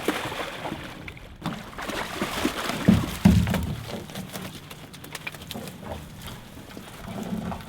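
Water splashing and sloshing around a small commercial fishing boat, with irregular knocks and two heavy thumps about three seconds in.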